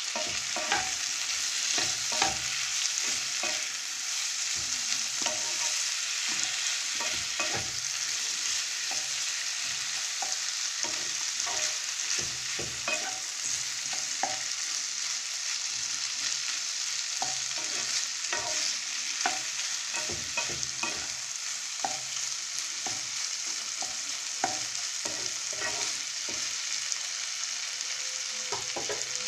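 Diced vegetables sizzling in oil in a nonstick kadai while a wooden spatula stirs them, with frequent irregular knocks and scrapes of the spatula against the pan over a steady frying hiss.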